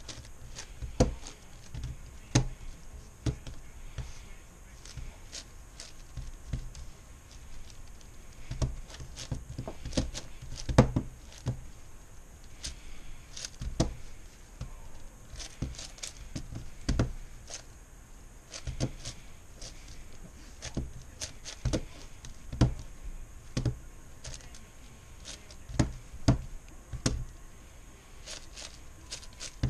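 MoYu Meilong 10x10x10 cube being turned one-handed during edge pairing: irregular plastic clicks and clacks as its layers are turned and snap into place, a few every second with short pauses between.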